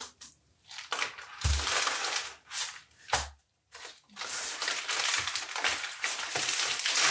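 Thin clear plastic orchid nursery pot crackling as it is squeezed and twisted to loosen the root ball, with brown paper rustling under the hands. Two dull knocks come about one and a half and three seconds in.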